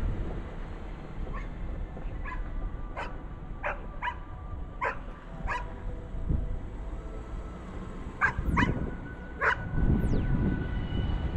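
A dog barking repeatedly: about seven short, fairly high barks in the first half, then a pause and three more, over a low rush of wind.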